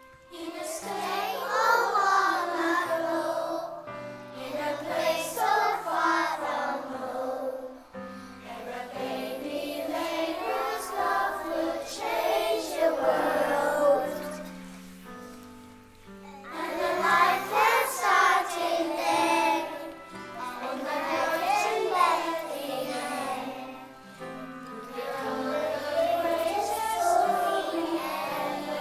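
A group of young children singing together over a keyboard accompaniment, in phrases of a few seconds with short breaks between them.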